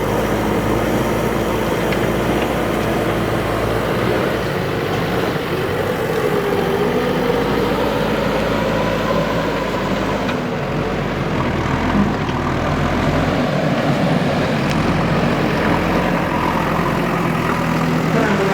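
Diesel engine of a JCB 3DX backhoe loader running steadily while it works, its pitch wavering slightly at times.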